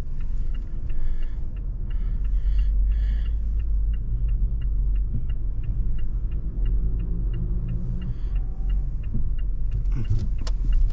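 Car's turn-signal indicator ticking steadily, about three ticks a second, over the low rumble of the engine and road inside the cabin.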